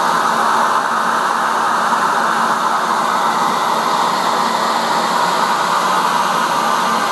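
CNC twist-turning lathe running: a steady whooshing whir of the machine's motor and dust extraction, with a faint low hum underneath.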